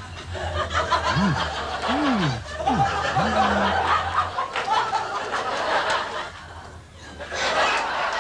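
A crowd laughing, the laughter swelling and ebbing and rising again near the end, with a few short rising-and-falling tones in its first half.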